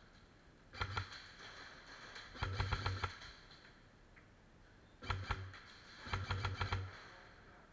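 Airsoft rifle firing four short bursts of rapid, evenly spaced shots, each with a low thump: two short bursts and two longer ones of about half a second.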